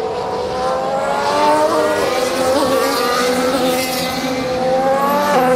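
Formula 1 cars' engines passing on the track, their pitch climbing as they accelerate, with a sudden drop in pitch near the end as a gear is changed.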